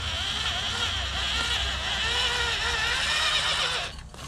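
Corded electric drill boring through a wooden board, its motor running under heavy load with a pitch that wavers up and down, then stopping about four seconds in. The overloaded drill is smoking and burning up.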